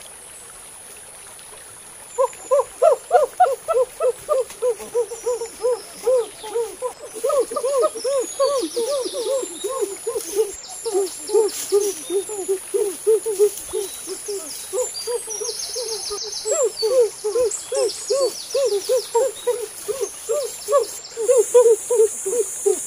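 A bird giving a long rapid series of short hooting calls, about three to four a second, starting about two seconds in, over a steady high insect buzz from the forest.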